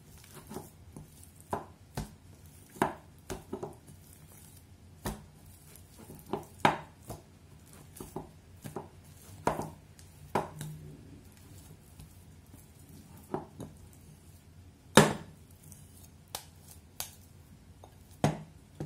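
Dough being kneaded by hand in a glass bowl on a wooden cutting board: irregular knocks and thumps as the dough is pressed and the bowl shifts on the board. The loudest is a single sharp knock about fifteen seconds in.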